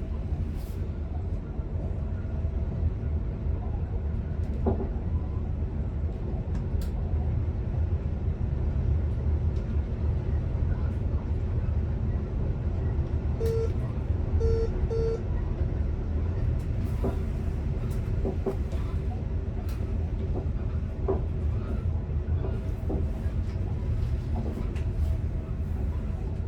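Swedish commuter train running, heard from the driver's cab: a steady low rumble with scattered faint clicks. About halfway through come three short electronic beeps.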